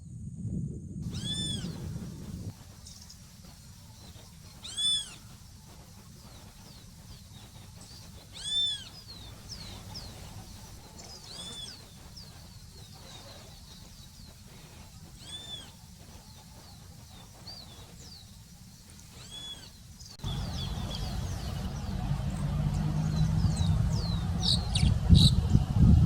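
A bird giving a single short, arched, mewing call, rising then falling in pitch, repeated about every three to four seconds. In the last few seconds a loud low rumble comes in, with a flurry of quick high chirps.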